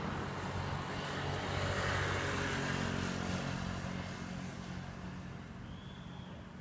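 An engine's steady hum, loudest about two seconds in, then fading away.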